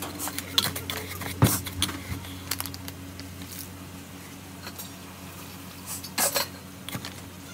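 Scattered clinks and knocks of cookware and utensils being handled at a gas stove, with a sharper clatter about six seconds in, over a steady low hum.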